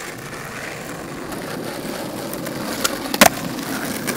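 Skateboard wheels rolling on asphalt, growing louder. About three seconds in, a light tap is followed by a sharp clack as the wooden deck hits the pavement.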